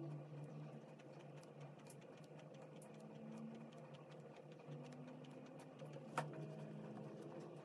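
Extra-fine nib of a Pilot Kakuno fountain pen scratching on paper in quick short strokes, a faint run of small irregular ticks over a low steady hum, with one sharper click about six seconds in.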